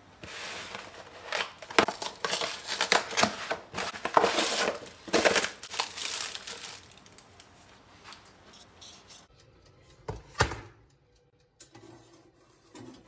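Plastic wrapper around frozen pizza slices crinkling and rustling as a cardboard pizza box is opened and the wrapped slices are pulled out, dense for the first several seconds and then dying down to scattered crackles. One sharp knock about ten seconds in.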